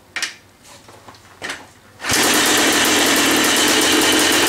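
Yamaha Blaster 200cc two-stroke single in a Yamaha Big Wheel being kick-started: after a couple of short clatters it catches on the first kick about two seconds in and runs steadily with a rapid, even beat. This is the engine's first start after a new piston and cylinder were fitted to cure its low compression.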